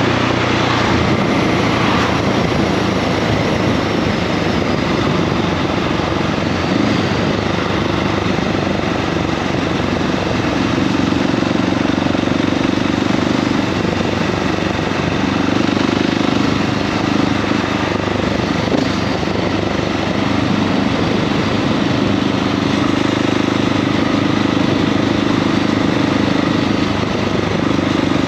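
KTM 690 SMC R single-cylinder engine in its A2-restricted form, running under way with the engine note swelling and easing several times as the throttle changes, over steady wind and road noise.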